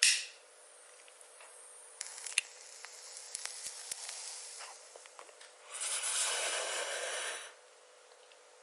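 A person smoking: a short sharp puff of air at the start, faint crackling ticks, then a long breathy exhale of smoke lasting nearly two seconds.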